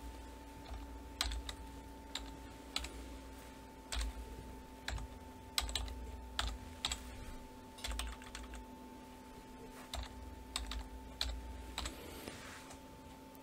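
Faint computer keyboard keystrokes, sparse and irregular, as numbers are typed into a spreadsheet-style table, over a faint steady electrical hum.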